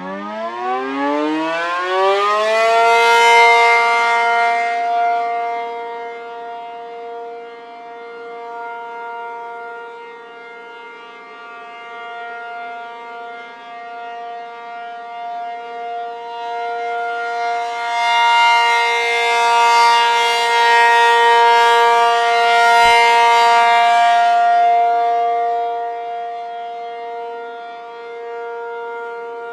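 Outdoor warning siren winding up from a standstill, its pitch rising over the first few seconds, then holding one steady, multi-note tone. Its loudness swells and fades twice.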